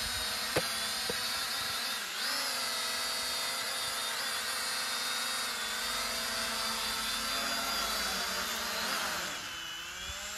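Z908 Pro mini quadcopter's propellers whining steadily as it hovers low and comes down to land, with a short sharp click about half a second in and a brief dip in pitch about two seconds in. Near the end the whine sinks in pitch as the drone settles onto the ground.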